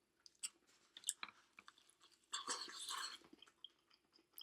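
Close-miked chewing of Chinese takeout food, with scattered wet mouth clicks and a crunchy stretch of about a second in the middle.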